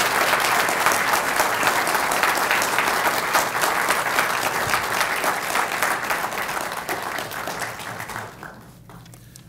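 An audience clapping in steady, dense applause that thins out and dies away near the end.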